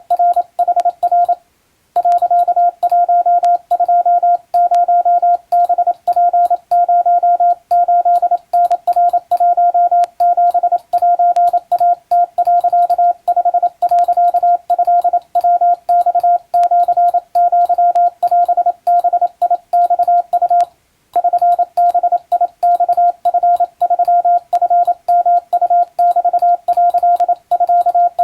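Japanese wabun Morse code sent as a single steady beep of about 700 Hz, keyed on and off in short dots and longer dashes, with faint clicks at the keying edges. The sending pauses briefly about a second and a half in and again about 21 seconds in.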